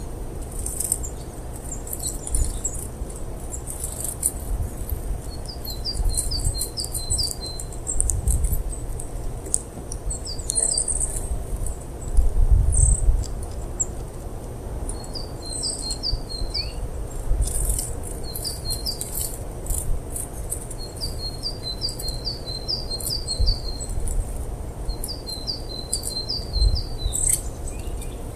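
Small songbird calling in repeated quick runs of six to eight short, high, down-slurred notes, several runs spread through the stretch, with scattered short high ticks over a steady low background rumble.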